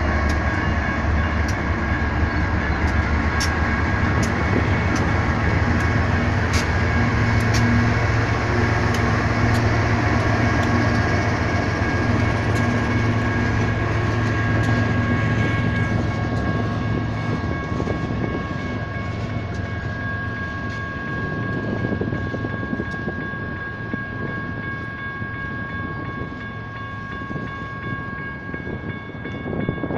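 Freight train passing a grade crossing. BNSF diesel locomotives run past for roughly the first half, with clicks from the wheels, and then freight cars roll by more quietly. The crossing's General Signals Type 1 electronic bells ring steadily throughout.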